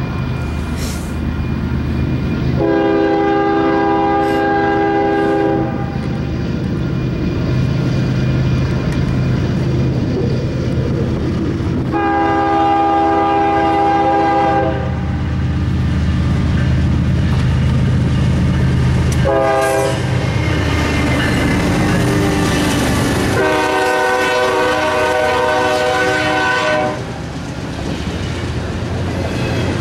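Norfolk Southern diesel freight locomotive sounding its air horn in the grade-crossing pattern, long, long, short, long, over the steady running of its engines. Near the end the freight cars' wheels clatter over the rail joints as the train passes.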